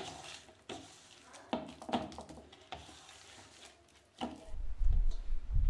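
A hand squishing and tossing sardines in a thick spice marinade in a stainless steel bowl: soft wet squelches and light scrapes and taps against the metal. About four seconds in, a louder low rumble takes over.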